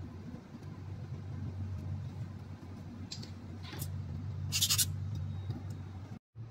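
Steady low room hum with a few brief rustling handling noises as fingers work fine thermocouple wires through a small assembly part. The loudest rustle comes about four and a half seconds in, and the sound cuts out briefly just before the end.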